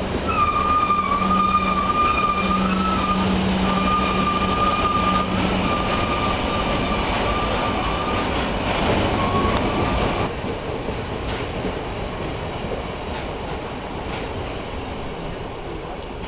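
Loaded bogie oil tank wagons of a freight train rolling past slowly, with a steady high-pitched squeal from the wheels over the rumble for the first ten seconds or so as the train brakes to a stop. After that the squeal stops and the rumble fades.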